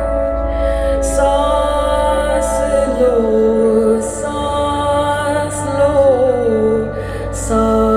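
Music played back through a high-end hi-fi system on Wilson Benesch Omnium loudspeakers: a slow, sustained melody with gliding notes over deep bass, and a soft, hissy percussion hit about every second and a half.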